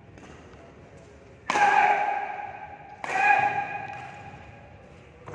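Badminton rally in an echoing hall: a few light shuttlecock hits, then two loud sharp racket hits about a second and a half apart, each ringing out for about a second.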